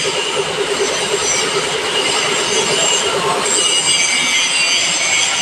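Milling machine cutting a workpiece: a steady, high-pitched metallic squeal of several tones over the running machine, with a fast pulsing underneath that stops about three and a half seconds in.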